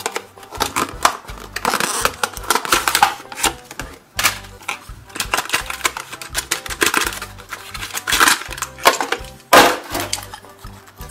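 Stiff clear-plastic blister packaging of a Siku die-cast toy crackling and clicking as it is peeled open and a small toy truck is pulled out, loudest in two spells, with background music underneath.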